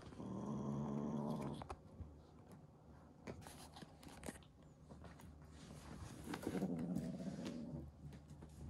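Kitten growling low over a furry toy it is playing with, twice: once for over a second at the start and again about six seconds in, with light scuffing and clicks of paws and toy on the rug in between.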